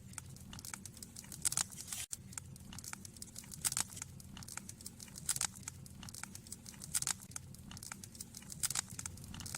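Irregular crinkling and crackling of dry kindling and paper being handled while a campfire is being laid and started.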